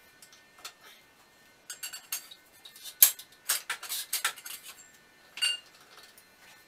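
Metal tools and parts clinking and clanking: a cluster of sharp clanks with the loudest about three seconds in, then one last ringing clink near the end.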